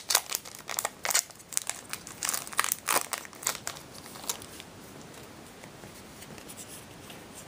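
Foil Yu-Gi-Oh! booster pack wrapper crinkling as it is opened by hand and the cards are pulled out. The crinkling stops a little past halfway, leaving only a faint hiss.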